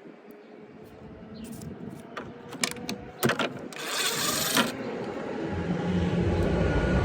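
Sharp knocks and a brief scrape of hand tools chipping at rotten wood, then a low engine rumble that grows steadily louder over the last couple of seconds.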